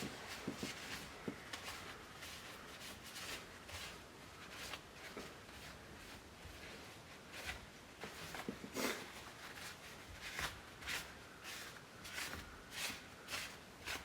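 Faint, irregular rubbing strokes of a wet paper towel wiping smudges off a steering wheel.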